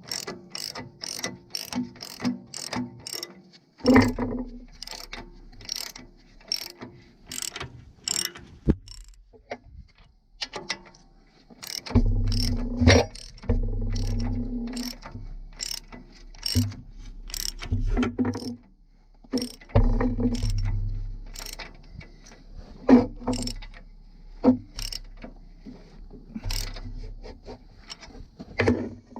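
Hand ratchet wrench clicking in quick repeated strokes as bolts are run in, with a few louder stretches that carry a low hum.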